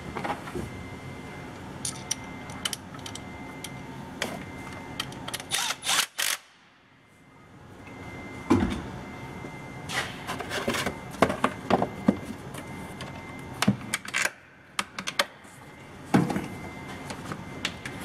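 Clicks, knocks and rattles of plastic parts as the air cleaner housing and intake duct are handled and refitted over the engine after an ignition coil swap. A faint steady high tone runs underneath.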